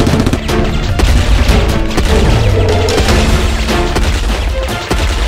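Loud dramatic music mixed with rapid gunfire and booms.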